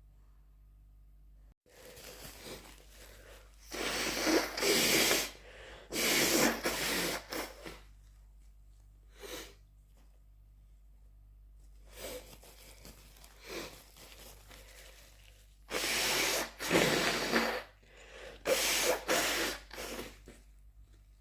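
A person sneezing and blowing their nose, a series of separate noisy bursts with short sniffs between them; the longest and loudest come in two groups, a few seconds in and again near the end.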